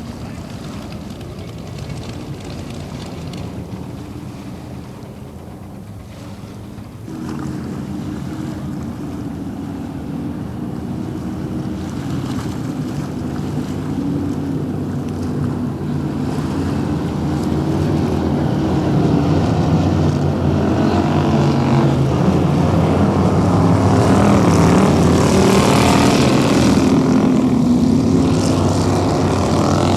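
Racing powerboat engines running at speed, their pitch rising and falling as they are throttled. The sound jumps up about seven seconds in and keeps getting louder, as if the boats are coming closer.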